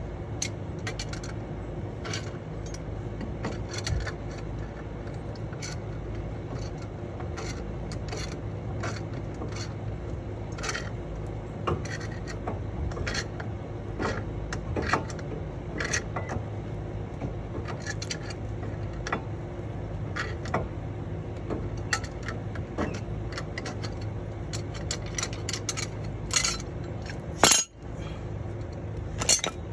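Irregular metal clicks and scrapes of a pipe wrench working on a brake caliper, squeezing an old brake pad against the caliper pistons to push them back in. A steady low hum runs underneath, and there is a louder clatter of metal near the end.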